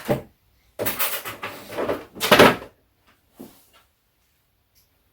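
Handling noise: a few short scraping, rustling bursts, the loudest about two and a half seconds in, then quiet.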